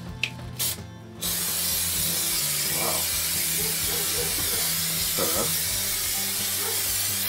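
Aerosol can of spray adhesive spraying in one long continuous hiss, starting about a second in, as it coats a wall for sticking cork on.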